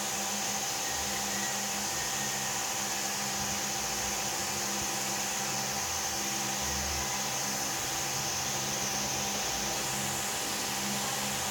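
Steady rushing noise with a faint steady tone in it, unchanging in level.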